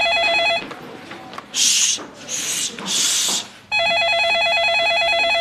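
Electronic office desk telephone ringing with a fast warbling trill, two rings about three seconds apart. Between the rings come three short hissing sounds.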